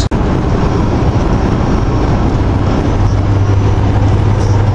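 Steady road and engine noise inside a moving truck's cab at highway speed, with a low drone that strengthens about three seconds in.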